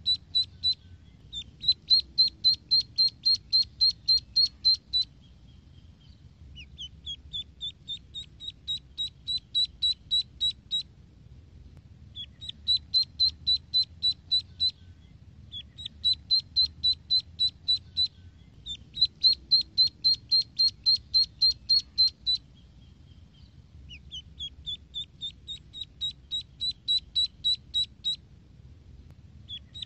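Ducklings peeping: short, high-pitched peeps about four a second, in bouts of about three seconds with brief pauses between them, some bouts beginning on a rising pitch.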